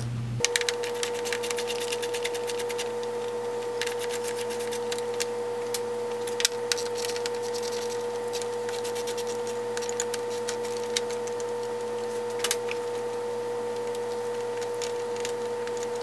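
Runs of rapid clicks from a hand ratchet wrench turning out the radiator fan's 10 mm mounting bolts, in several bursts, over a steady hum that starts and stops abruptly.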